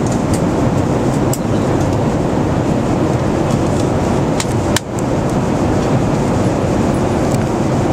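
Steady roar of cabin noise inside a Boeing 777-200ER airliner in flight, from the engines and the air rushing past the fuselage. A few light clicks sound over it, the sharpest a little past the middle.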